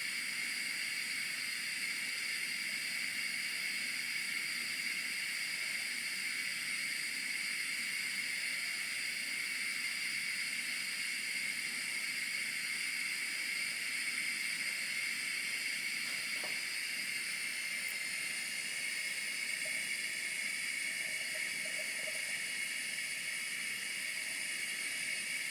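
Steady hiss from a small Bialetti Bia2 stovetop espresso pot heating on a gas ring turned up full, as the water in the bottom chamber nears the point of forcing up through the coffee.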